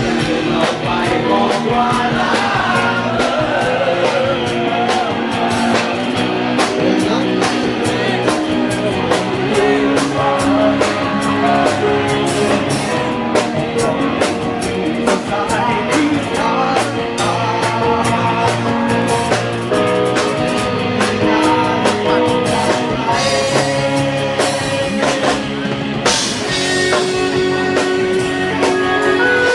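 A rock band playing live, with drum kit and guitar, and a man singing into a microphone.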